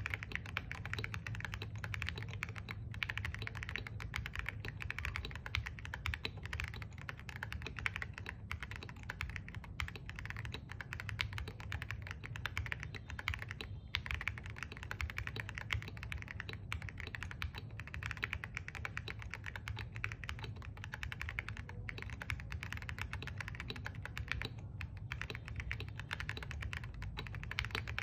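Continuous typing on a Star75 mechanical keyboard with Jelly Strawberry V3 switches and MSA profile keycaps: a dense, unbroken stream of keystrokes at an even level.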